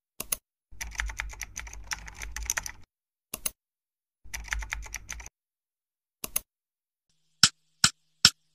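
Computer keyboard typing and mouse-click sounds: a single click, a run of keystrokes about two seconds long, another click, a shorter run of keystrokes, another click, then three sharp separate clicks about half a second apart near the end.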